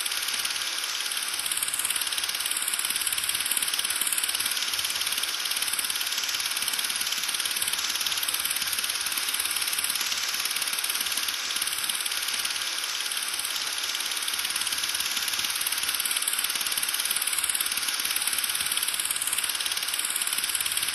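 Steady hiss of static-like noise, mostly high-pitched, unchanging throughout.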